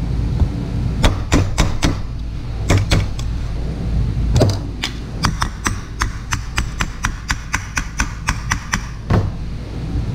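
Sharp metal-on-metal taps on an air-conditioner fan motor's housing during bearing replacement. A few scattered knocks, then from about halfway a quick, even run of about four taps a second that stops near the end.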